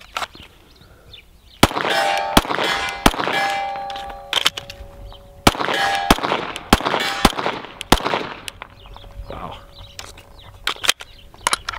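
A 9mm Glock 34 pistol fires two quick strings, three shots and then five. Each shot is followed by the ringing clang of a struck steel target. A few fainter clicks come near the end.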